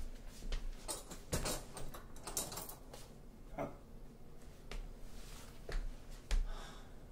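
A door and its padlocked metal hasp being handled: a scattered series of sharp clicks and light knocks, with some rustling and a few soft low thumps.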